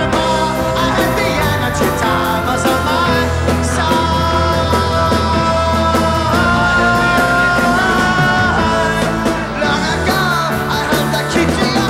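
Progressive rock band playing live with drums, electric guitar and a singer, several notes held together through the middle.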